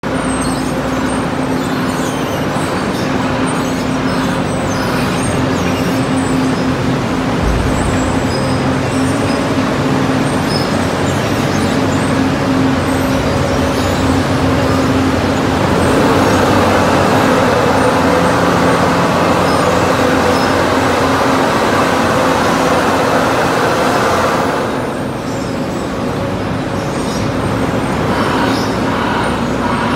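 Diesel engines of heavy earthmoving machines (a tracked dozer, an excavator and a wheel loader) running steadily under load with a constant low drone. The noise grows louder for several seconds past the middle, then eases briefly about 25 seconds in.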